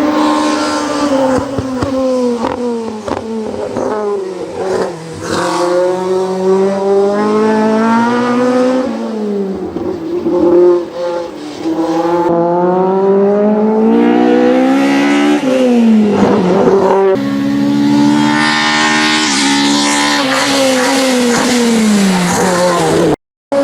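Opel Kadett E hillclimb race car engine at full throttle, the revs climbing and dropping again and again through gear changes and lifts for corners. The sound cuts out briefly near the end.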